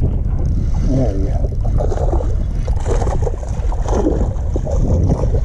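Wind rumbling on the microphone, with water splashing as a small bass is reeled in to the boat on a spinning rod and reel.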